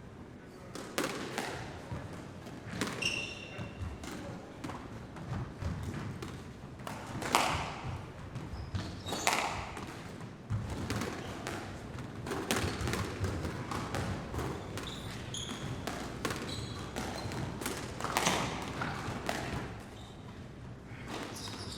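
Sports hall ambience: balls bouncing and thudding irregularly on a hard floor, with scattered voices and a few short high squeaks, all carrying the reverberation of a large hall.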